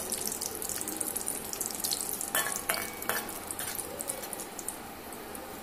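Cashews frying in hot ghee in a metal kadai, a steady crackling sizzle that eases off near the end. A metal spatula stirs them and knocks against the pan twice around the middle.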